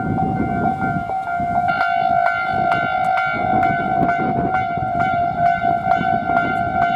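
Japanese level crossing warning bells ringing in a fast, regular rhythm. A second bell joins about two seconds in, over the low rumble of a passing train.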